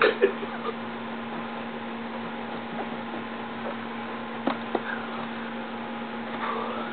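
A steady electrical hum over faint room hiss, with a couple of faint short clicks about four and a half seconds in.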